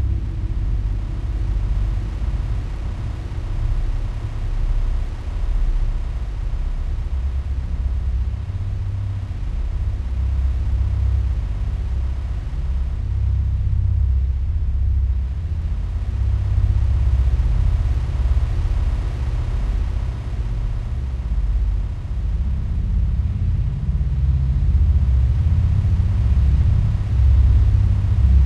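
UFO sound effect: a deep, steady rumbling drone with most of its weight in the low bass, swelling a little louder in the second half.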